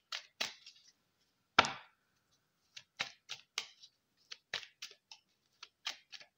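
Hand-held deck of oracle cards being shuffled overhand: a string of short, sharp card flicks at an uneven pace, with one louder knock about one and a half seconds in.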